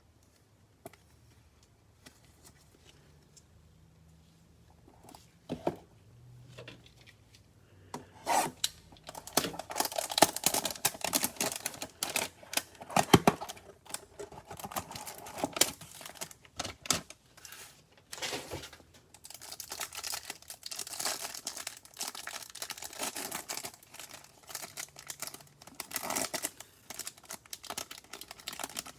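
Trading card pack packaging being torn open and crinkled. There are a few faint rustles at first, then steady crackling and tearing from about eight seconds in, with one sharp snap near the middle.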